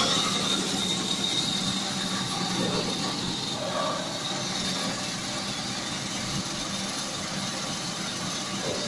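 Band saw of a semi-automatic tissue-roll cutting machine running, a steady high whine over a low hum and noise.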